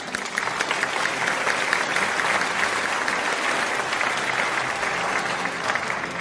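Theatre audience applauding: dense, steady clapping from many hands that eases slightly near the end.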